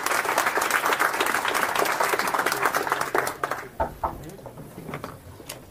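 Audience applauding, the clapping dying away after about three seconds into a few scattered claps and a short low thump.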